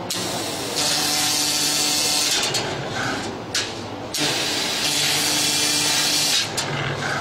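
YAG laser cutter cutting small round holes in steel plate: the cutting gas hisses from the nozzle in two spells of about two and a half seconds each, stopping between holes, over a steady machine hum.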